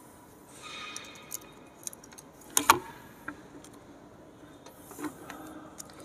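Screwdriver and fingers handling a plastic smoke-detector base: small clicks and scrapes as a terminal screw is loosened and a wire is pulled free, with one sharper click about two and a half seconds in.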